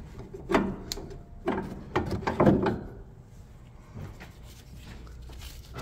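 Metal knocks and scraping as a brake caliper and its mounting hardware are worked off and handled, with a cluster of clunks in the first three seconds and one lighter knock about four seconds in.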